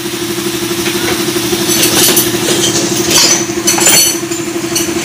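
An engine idling steadily, with several light metallic clinks from about two seconds in.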